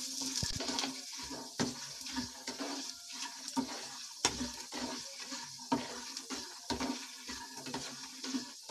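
Wooden spatula stirring and scraping peanuts, split chana and urad dal and dried red chillies around a nonstick pan as they dry-roast in a little oil, the grains rattling against the pan with a light sizzle underneath. The scrapes come irregularly, several a second.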